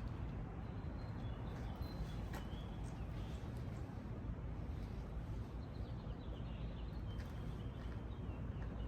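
Outdoor background: a steady low rumble with faint high bird chirps over it, and a couple of light knocks, about two seconds in and again near the end.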